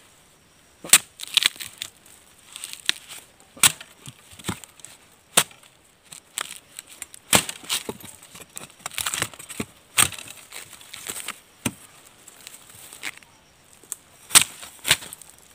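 A machete chopping through fresh wild bamboo shoots at their base: a dozen or more sharp chops at an uneven pace.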